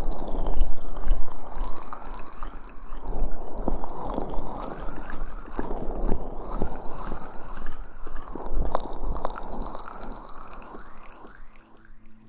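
Aloe vera gel being rubbed and squished over an ASMR microphone's ears: wet, sticky squelching with many small clicks, swelling and fading in waves.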